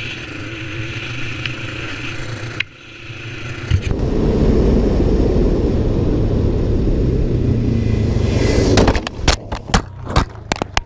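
ATV quad bike running at speed, with a sudden break about two and a half seconds in, then a louder stretch of riding. It ends in a crash about nine seconds in: a quick series of hard knocks and scrapes as the quad and camera tumble onto dirt.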